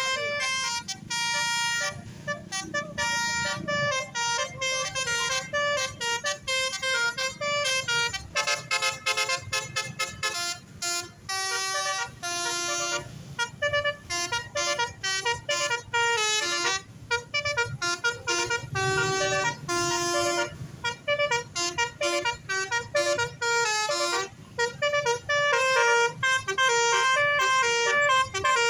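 Basuri 'telolet' multi-tone bus horn playing a fast melodic tune, its notes stepping up and down in quick runs with short breaks between phrases, over a low rumble.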